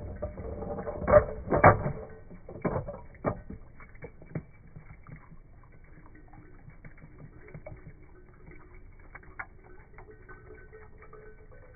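A few sharp plastic knocks and clatters, loudest in the first two seconds, as a toy car slides and tumbles down a plastic play-set slide. After that only faint scattered ticks.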